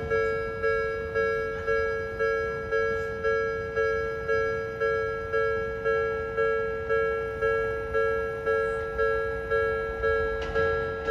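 Japanese railway level-crossing warning bell ringing steadily, about two dings a second, each ding dying away before the next. Near the end, the rushing noise of an approaching train starts to come in under the bell.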